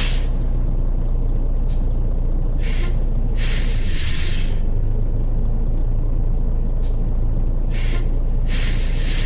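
International truck's diesel engine idling steadily with a low note. Twice, about five seconds apart, a short burst of air hiss is followed by a longer one.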